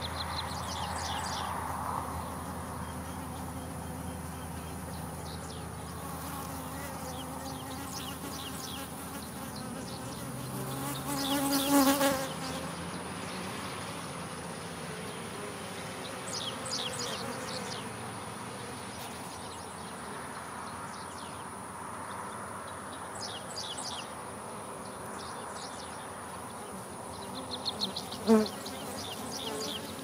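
Honeybee swarm clustered on a tree limb, humming steadily as a resting swarm. The buzzing swells louder about twelve seconds in and again briefly near the end.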